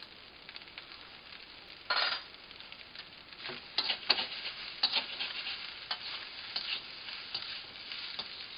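Fried rice sizzling in a hot steel wok while a metal slotted spatula stirs and tosses it, scraping and clinking against the wok's wall. The scraping starts about two seconds in and grows busier from about three and a half seconds on.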